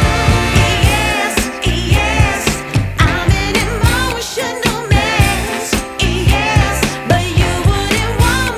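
Background pop song with a female-sounding singing voice over a steady beat and bass line.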